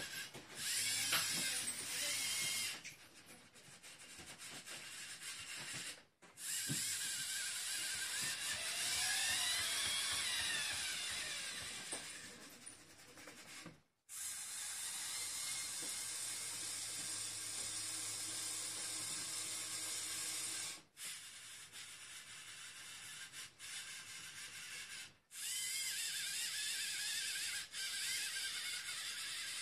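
Small electric LEGO motors driving a robotic arm, whirring in runs of several seconds whose pitch rises and falls as the motors speed up and slow down, and stopping abruptly several times.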